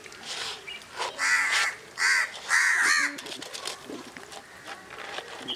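A crow cawing three times in quick succession, starting about a second in; the caws are the loudest sound here.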